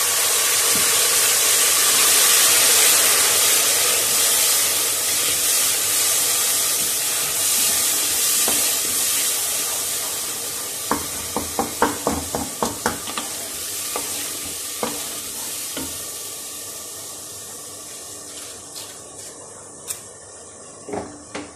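Loud sizzling hiss from half a cup of water poured into hot ghee and frying onions in an aluminium pressure cooker, slowly dying down as the water heats. A wooden spoon stirs the pot, with a quick run of knocks against the pot about halfway through and a few single knocks near the end.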